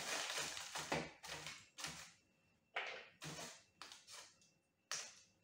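A bar of dark baking chocolate being broken into pieces in its paper and foil wrapper: crinkling wrapper and a series of short, sharp snaps, busiest in the first second and then coming about every half second.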